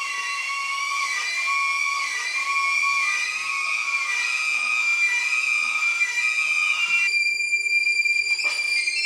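Live experimental sound score of high, sustained whistling tones stacked in layers, with a slow regular wobble about once a second. About seven seconds in the texture thins and brightens, and sliding tones sweep in near the end.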